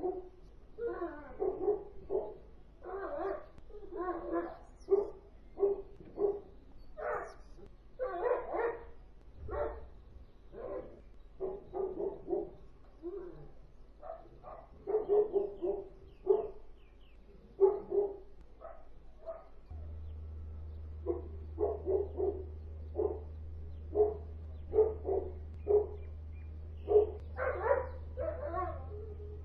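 Kennel dogs barking over and over, about one or two barks a second, with hardly a pause: persistent nuisance barking. A steady low hum comes in about two-thirds of the way through.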